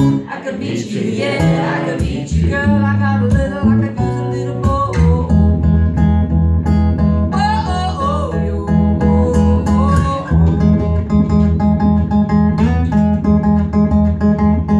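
Live solo performance: a man singing to his own strummed acoustic guitar, with the guitar running on steadily and the voice carrying a sung line through the middle.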